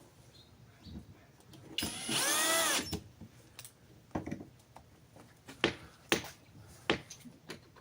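Power drill driving a screw in one short run of about a second, its motor whine rising in pitch and then falling away, followed by a few sharp clicks of hardware being handled.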